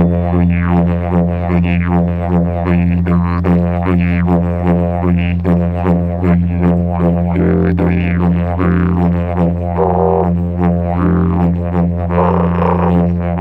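Drone music: one unbroken low note with sweeping overtones above it that pulse about twice a second.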